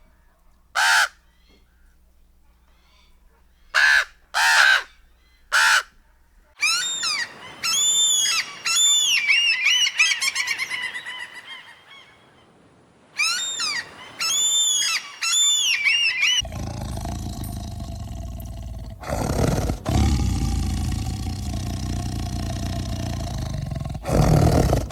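A run of animal calls: four short harsh bird calls spaced about a second apart, then quick repeated bird calls in two runs, then a loud, low growl that runs on from about two-thirds of the way in.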